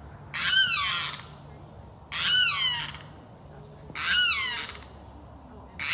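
A bird calling loudly four times, about every two seconds, each a short harsh call that falls in pitch.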